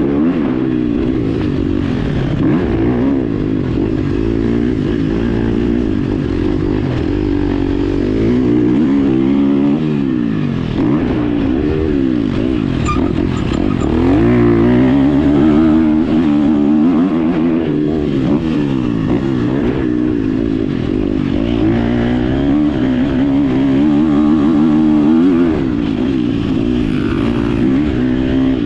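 Motorcycle engine heard onboard at close range on a track lap, its pitch climbing and dropping again and again as it accelerates, shifts and slows for corners.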